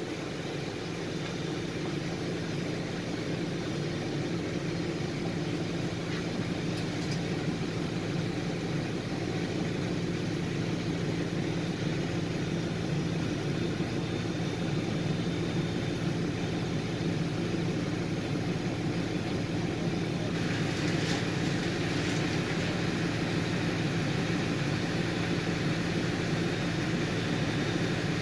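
City bus engine idling at a standstill, heard from inside the cabin as a steady low hum. About 20 seconds in, a hiss joins it and stays to the end.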